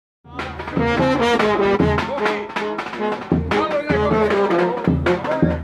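Brass band of trumpets and other horns playing a tune together, with a low beat pulsing underneath; the music cuts in a moment after the start.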